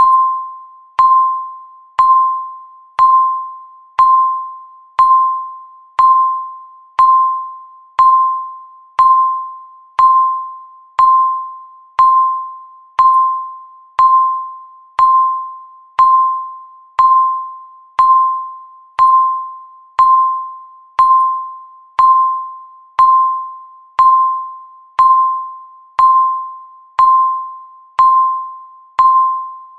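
Countdown timer's tick sound effect: a single bell-like ding struck once a second, each note fading away before the next.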